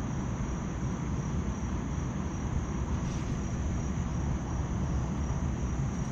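Steady low rumble of running HVAC machinery with a faint constant high-pitched whine.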